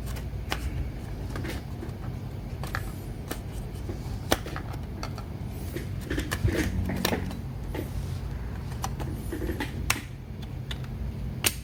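Scattered small clicks and taps of laptop RAM modules being handled, pulled from the slot and snapped into place, over a low steady hum. A sharper click comes about four seconds in and another near the end.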